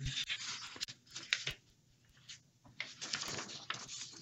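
Sheets of paper rustling as they are handled, in two spells of about a second and a half each, the second starting nearly three seconds in.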